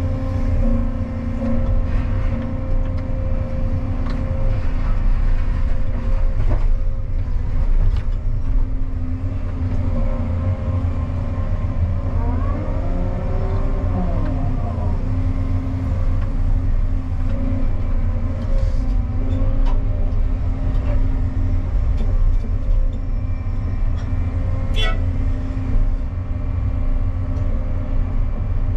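Cat 335 excavator's diesel engine and hydraulics running steadily under working load, heard from inside the cab. There are a few short knocks, and a wavering tone rises and falls about halfway through.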